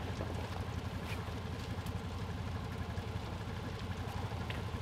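Side-by-side UTV engine idling steadily, a low even hum.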